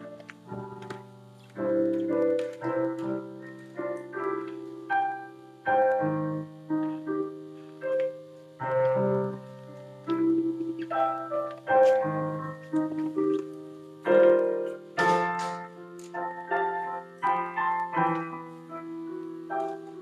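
Piano playing a quiet instrumental piece, melody notes and chords struck one after another and left to ring over held bass notes.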